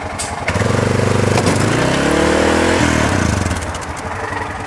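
ATV engine revving hard as the machine climbs the ramp and pitches over backward. The revs rise about half a second in, climb in pitch, then drop off near three seconds and die away, with a few sharp clicks early on.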